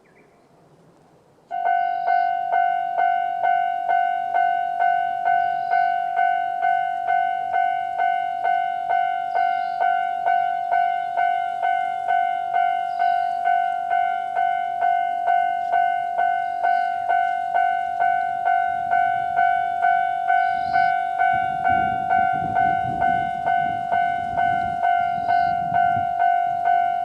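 Japanese railway level-crossing electronic alarm bell starting about a second and a half in and ringing its standard clanging tone in even strokes about twice a second. In the last third a low rumble swells and fades as a Kiha 2200-series diesel railcar passes.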